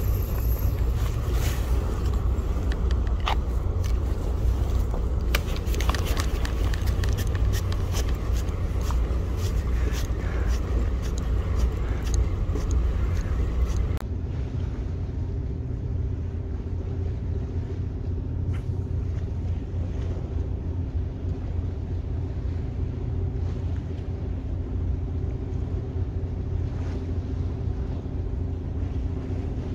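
Steady low outdoor rumble by the sea, with many sharp clicks and knocks over about the first half. About halfway through it turns a little quieter, the clicks stop, and a faint steady hum comes in.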